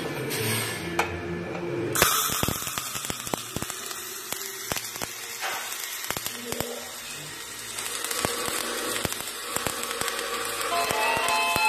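Gasless flux-cored MIG welding arc from a Qingshui MIG200i welder, struck about two seconds in: a steady frying hiss with frequent sharp crackles and pops.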